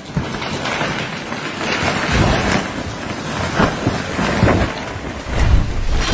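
A rotten old tree trunk breaking apart and coming down: a loud rumble of falling wood and debris with repeated heavy thuds, building from about two seconds in.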